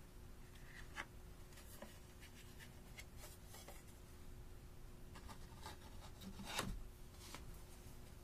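Faint clicks, taps and rubbing of hands handling a plastic eyeshadow palette, with one louder knock about six and a half seconds in.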